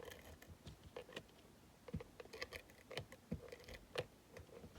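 Scattered light clicks and taps of paper, card stock and small crafting tools being handled on a table, irregular and a few a second.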